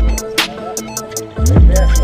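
Background music with a steady beat of sharp ticks and held melodic notes; the deep bass drops out just after the start and comes back in about a second and a half later.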